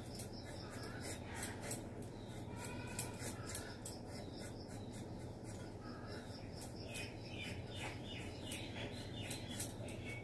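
A raw potato being cut on an upright floor blade (boti): short scraping knife strokes, about four a second. Birds chirp in the background.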